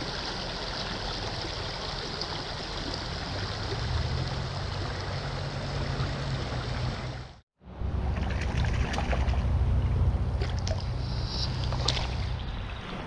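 Stream water rushing steadily. About halfway through, the sound cuts out for an instant and comes back louder, with a low rumble and a few sharp clicks.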